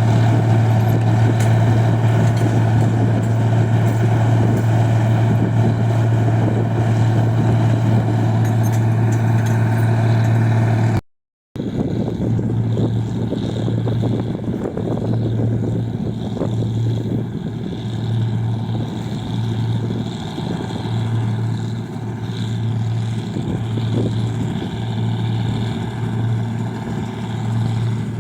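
Engine of a rice-processing machine running with a steady low hum. After a short break about eleven seconds in, the hum swells and fades rhythmically, about once a second.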